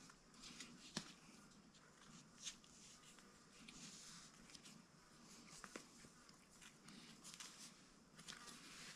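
Faint handling sounds over near silence: small ticks and soft rustles, scattered irregularly, as a lace is pulled and threaded through a sandal's straps.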